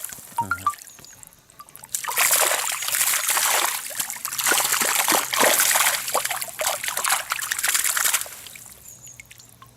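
Water splashing and dribbling as a catch of crucian carp thrash about, quieter at first, then in a dense run of splashes for about six seconds before dying away.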